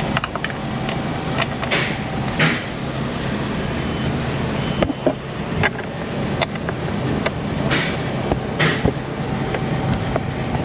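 Hand ratchet and metal tools working bolts loose: scattered clicks, short bursts of ratcheting and light metal clinks, over a steady low hum.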